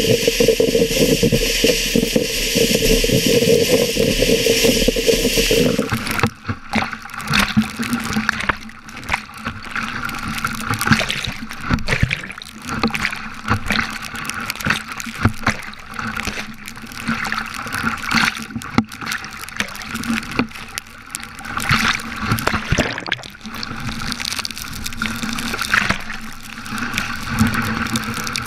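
A kayak and paddle working through choppy breaking waves: water splashing and gurgling against the hull in irregular surges. Before that, a steady hiss cuts off suddenly about six seconds in.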